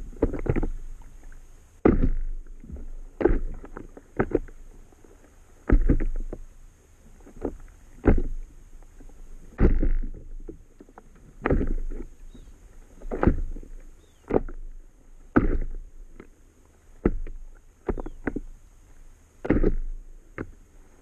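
Small waves slapping against the hull of an inflatable paddle board, a slap every second or two at an uneven rhythm.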